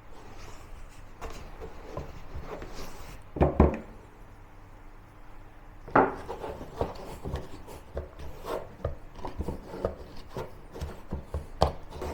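Sticky bread dough being mixed and kneaded by hand in a mixing bowl: irregular soft slaps, rubbing and knocks, loudest about three and a half and six seconds in.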